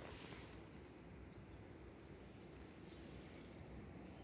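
Near silence with faint, steady, high-pitched insect chirring from the surrounding grass and bushes, and one brief knock at the very start.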